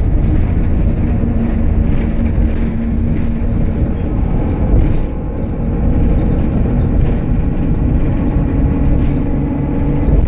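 Cummins diesel engine of an Optare Solo midibus running under way, heard from inside the passenger saloon as a steady low rumble mixed with road noise. Its humming engine note fades about halfway through, with a brief dip in loudness, and comes back near the end.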